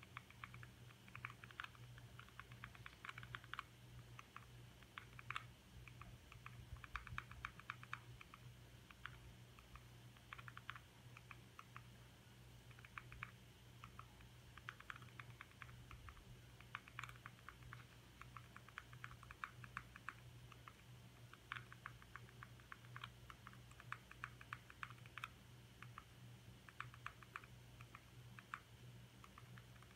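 Faint clicking of a remote control's buttons, pressed in quick runs of several clicks with short pauses between, as an on-screen keyboard is stepped through key by key. A low steady hum runs underneath.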